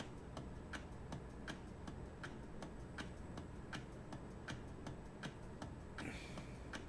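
Steady, even ticking at about four ticks a second, like a clock, with a brief soft rustle near the end.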